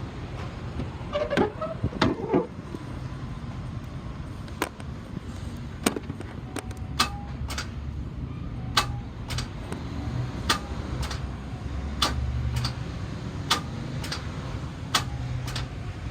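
Starter on a 2011 Chevy Tahoe PPV's 5.3-litre V8 clicking over and over, a sharp click roughly every second, without the engine turning over. The motor appears to be locked up, and may be hydrolocked.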